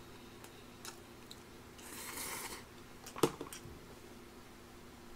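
Quiet sounds of a person eating at a table: a soft hiss about two seconds in and a sharp tableware click a little after three seconds, with a few small ticks, over a faint steady hum.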